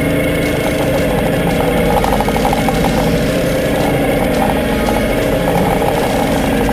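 A 40 hp outboard motor running steadily at low revs, close to the camera.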